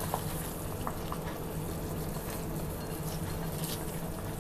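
Saucepan of chicken wing and broccoli clear soup boiling on a gas burner: a steady hiss of bubbling with a few small pops, over a steady low hum.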